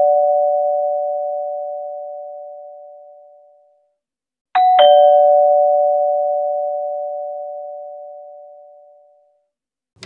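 Two-tone doorbell chime: a ding-dong, a higher note followed at once by a lower one. It rings about four and a half seconds in and fades away over about five seconds, while the ring before it is still dying away at the start.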